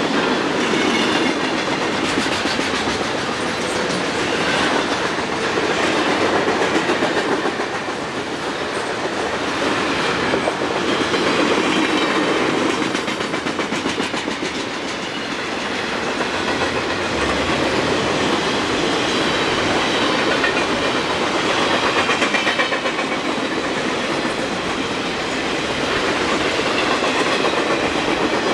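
Freight train cars rolling past with a steady rumble and the clickety-clack of wheels over rail joints, swelling and easing as the cars go by.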